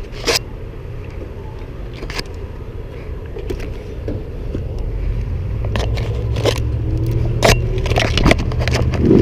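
A car engine running close by, its low hum growing louder through the second half, with sharp clicks and scrapes of hands handling the camera.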